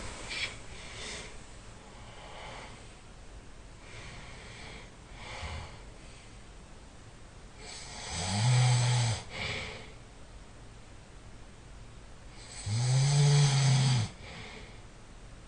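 A man snoring: two long, deep, buzzing snores about four seconds apart, each lasting over a second, with fainter breaths between them.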